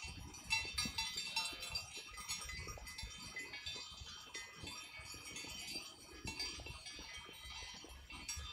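Bells on a grazing flock of sheep clinking, many small ringing tones overlapping without a break.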